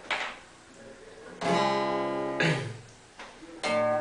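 Acoustic guitar strumming chords for the song's intro, about four strums each left to ring and fade.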